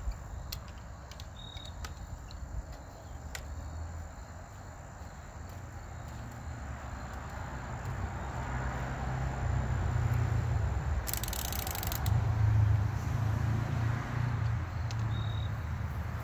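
Wind rumbling on the microphone outdoors, swelling in the second half, with a steady high insect trill that stops about two-thirds through and a few light clicks from the crossbow being handled.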